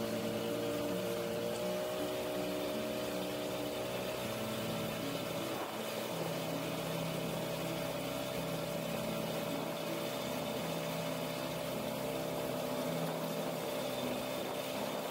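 Outboard motor of a small boat running steadily at cruising speed, with water rushing along the hull.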